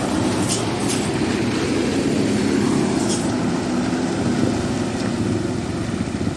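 A large road vehicle's engine running steadily with a deep drone, with a few short bursts of hiss over it, twice about half a second to a second in and once about three seconds in.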